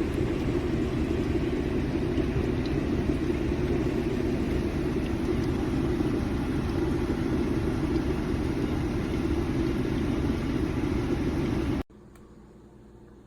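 Water boiling in an electric kettle: a steady rumbling hiss that cuts off abruptly near the end.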